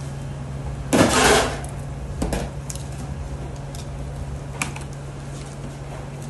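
A knife and metal clatter against a stainless-steel tray as a roasted whole carcass is carved: one loud scrape-and-clatter about a second in, lasting about half a second, then a few lighter clicks and knocks. A steady low hum sits underneath.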